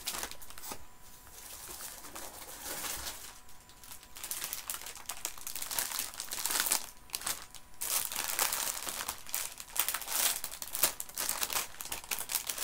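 Sweet packaging crinkling and rustling as it is handled, the crackling getting denser and louder about halfway through.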